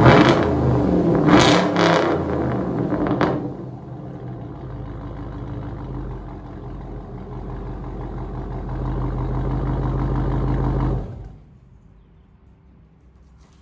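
Straight-piped exhaust of a 2004 GMC Yukon's Vortec V8 blipped hard about four times in quick succession, then settling to a steady idle that cuts off suddenly about eleven seconds in.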